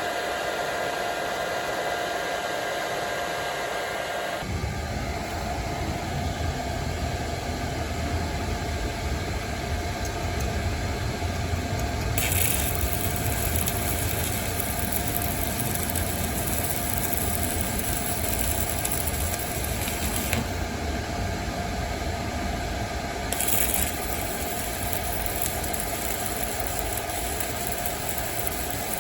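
Hone MMA 205 welder's cooling fan running with a steady whine, loud. About four seconds in, a low rumbling noise joins it. A spell of brighter hiss follows for about eight seconds in the middle, with another brief one later.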